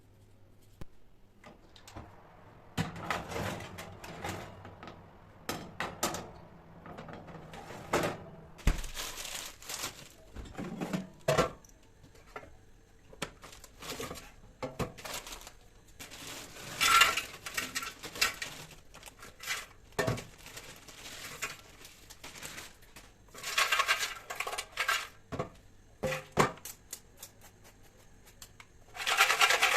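Kitchen dishes and utensils being handled, with scattered clinks and knocks and a few longer, noisier stretches.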